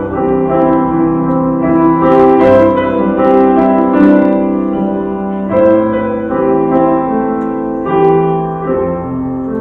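Piano playing an instrumental passage of a song between sung lines: held chords, with new notes struck every half second to a second.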